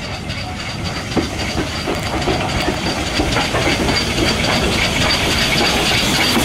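The LMS Princess Coronation Class 4-6-2 steam locomotive 6233 Duchess of Sutherland drawing slowly into the platform with its train. Steam hisses steadily and the wheels click over the rail joints, growing louder as the engine comes alongside.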